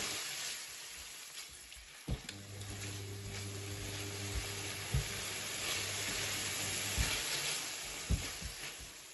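Diced chicken frying in oil in a pan, sizzling steadily over a low hum. A few sharp knocks come as a utensil stirs it against the pan.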